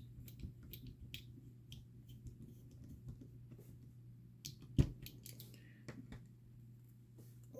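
Small scattered clicks and taps of tiny beadlock screws and wheel parts being handled and fitted while assembling a 1/24-scale RC crawler beadlock wheel, with one sharper click a little before five seconds in.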